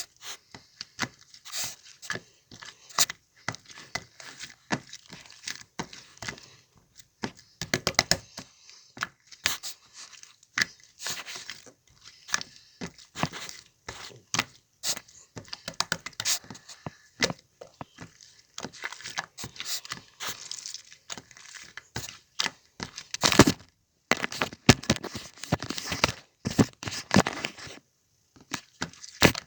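Slime being squeezed and stretched by hand, making irregular sticky clicks and crackling pops. The crackling grows denser and louder near the end.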